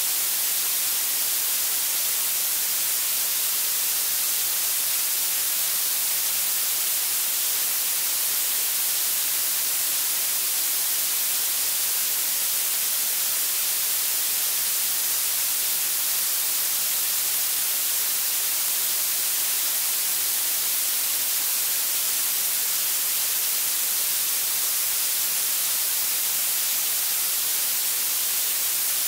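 Steady, unbroken synthetic hiss, bright and thin, with its energy piled into the highest pitches and almost no bass: generated colour noise from the high end of the noise colours, the kind called blue noise.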